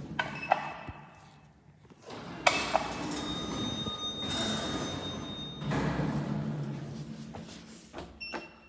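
OTIS Gen2 elevator: a few light clicks, then two thumps about two and a half seconds in, followed by a steady high beep lasting about a second. The sliding doors then run with a low hum, and near the end a short beep sounds as a car floor button is pressed.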